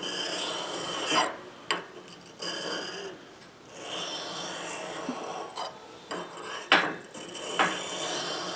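Steel ice auger blade stroked back and forth on an oiled Norton sharpening stone, a rasping scrape repeated in short strokes with brief pauses between them. The back face of the blade is being lightly polished to remove burrs and curled-over edges.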